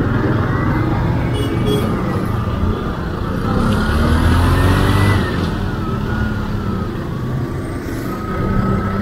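Motorcycle engine running under way. Its pitch rises as it speeds up from about three to five seconds in, then it eases off.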